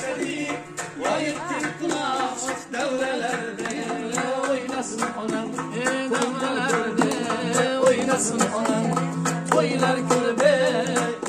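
Folk-style song with an ornamented, wavering melody over a steady percussion beat.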